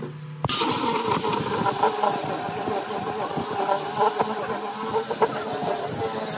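Electric angle grinder fitted with a sanding disc, sanding a wooden panel. It starts abruptly about half a second in, then runs steadily: a high motor whine over the scratch of the abrasive on the wood.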